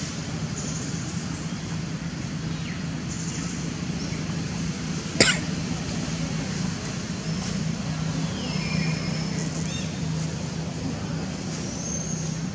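Outdoor background noise with a steady low hum. A single sharp click comes about five seconds in, and a few faint high chirps follow later.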